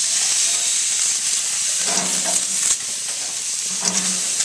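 Tomatoes and other vegetables sizzling steadily as they roast on the grill, a continuous bright hiss of frying.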